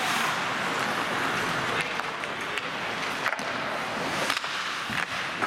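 Ice hockey play: a steady hiss of skates scraping the ice, with several sharp clacks of sticks and puck spread through the middle and end.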